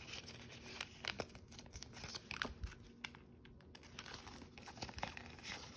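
Paper banknotes rustling and crinkling as they are handled and slid into a clear plastic pocket of a ring binder, with scattered soft crackles and a few light clicks.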